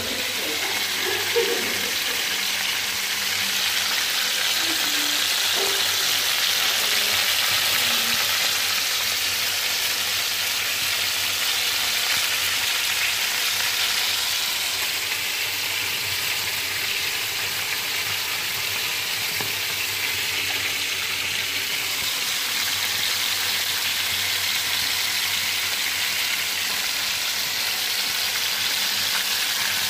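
Fish frying in a pan with a steady sizzle.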